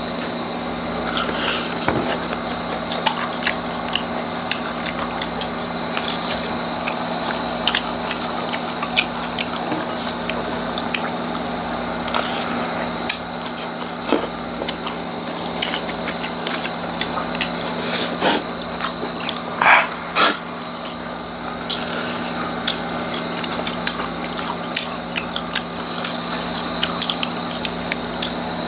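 Close-miked crunching and chewing of chicharong bulaklak (deep-fried pork mesentery) wrapped in lettuce, a run of many short sharp crackles. A steady hum runs underneath.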